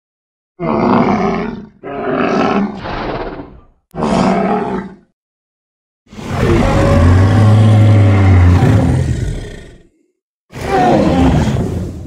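Monster roar sound effects for a fictional horned dinosaur: a quick series of short roars in the first five seconds, then one long, deep roar of about four seconds with a low rumble under it, and a shorter roar near the end.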